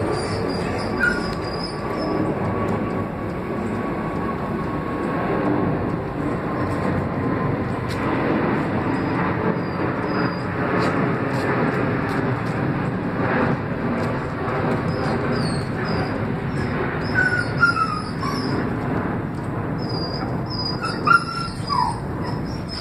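Steady rumbling background noise with a faint high squeal slowly dropping in pitch over the first ten seconds; birds chirp briefly several times, mostly in the second half.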